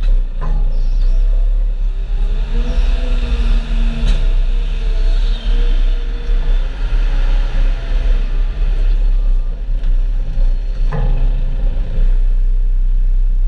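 Farm vehicle engine running steadily, with a deep rumble, a wavering whine over it, and a few sharp clunks: about half a second in, about four seconds in, and near eleven seconds.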